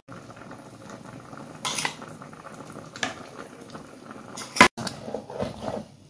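A metal spoon clinking and scraping against a plate and a pan, a few separate clinks at first and busier clatter near the end, over the low steady bubbling of a simmering pot.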